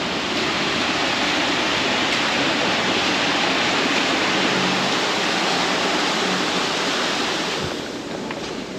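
Steady rush of pool water spilling over the infinity edge of a swimming pool, dropping away to a quieter hiss near the end.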